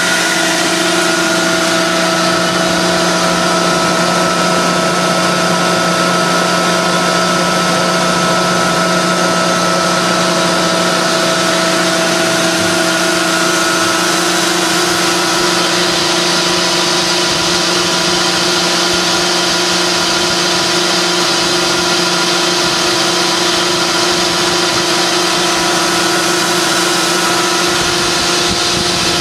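A 60 hp Baldor electric motor driving a Travaini liquid ring vacuum pump on a dual phase extraction unit, running steadily at about 16 inches of mercury vacuum. The sound is a loud, constant drone: a steady hum with a few fixed tones over a rushing noise.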